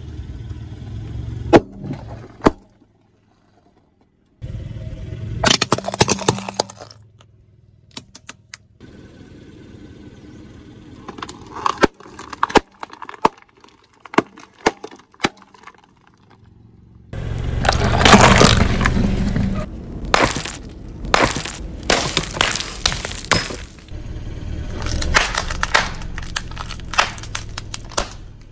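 Car tyre rolling over and crushing a series of small objects, giving sharp pops and cracks. About two-thirds of the way through there is a dense stretch of crunching and crackling, over the low rumble of the tyre.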